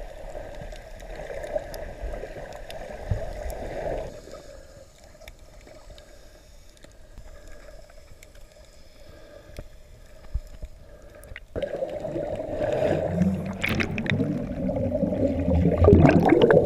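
Muffled underwater noise through an underwater camera's housing. It is fairly loud at first, drops away about four seconds in, and swells again with low rumble and scattered clicks about twelve seconds in.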